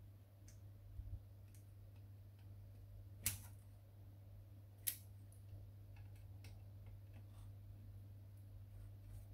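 Faint clicks and ticks of tools and metal and plastic parts as a part of a Canon LBP251 laser printer is fastened tight, with two sharper clicks about three and five seconds in, over a low steady hum.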